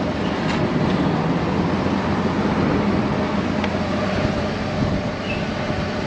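Steady vehicle driving noise heard from inside the cab: an even engine hum under tyre and road noise as the vehicle rolls slowly along a paved road.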